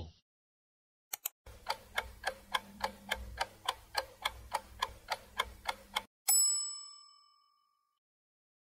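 Answer-time countdown sound effect: a clock ticking about three times a second for four to five seconds, then a single bell ding that rings out and fades.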